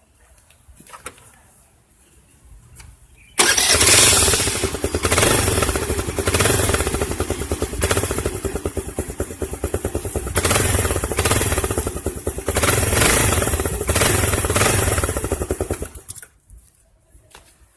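Honda Activa 3G scooter's single-cylinder four-stroke engine starting about three seconds in and running loud, revved up and down several times, with a homemade can extension fitted over its silencer to make the exhaust louder. It cuts off near the end.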